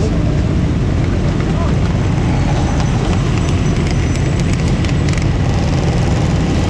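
Several dirt bike and quad engines running together, a loud steady engine noise with no clear break.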